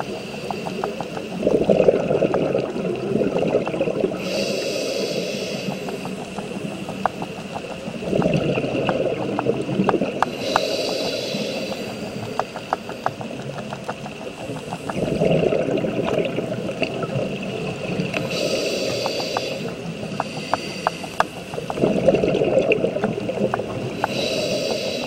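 Scuba diver breathing through a regulator underwater: a hiss on each inhale and a rush of exhaled bubbles, the cycle repeating about every six to seven seconds, four exhales in all. A steady crackle of small clicks runs underneath.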